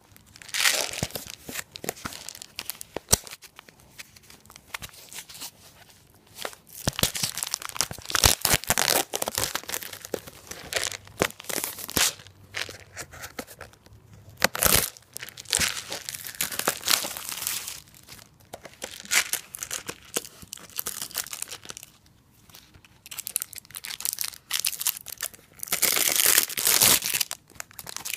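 Plastic packaging crinkling and tearing in the hands in irregular bursts, with a few sharp clicks, as a moisture eliminator container is opened.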